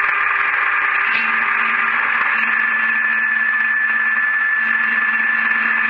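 Metal lathe running while parting off a brass workpiece: a steady, loud hiss with a constant high whine that grows stronger partway through.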